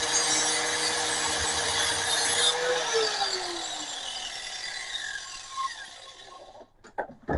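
Cutoff wheel cutting into a metal oil filter canister with a dense hiss and a steady whine. About two and a half seconds in the wheel comes off and spins down, its whine falling in pitch as the noise fades out, and a couple of clicks follow near the end.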